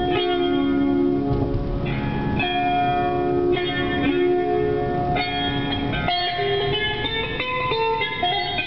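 Instrumental blues music led by guitar, with held notes that change every second or so.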